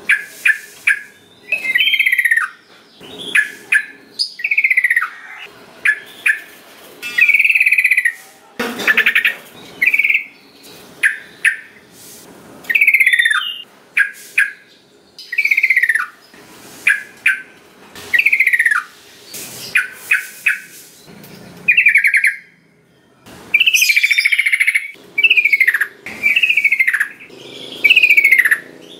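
Yellow-vented bulbul singing energetically: a rapid series of short, loud, bubbly phrases, many slurring downward, separated by brief pauses.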